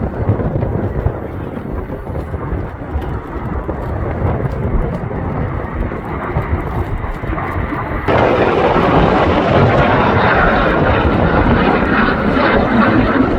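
Canadair Sabre Mk 6 jet fighter's turbojet engine rushing steadily as it flies its display, turning suddenly louder and brighter about eight seconds in.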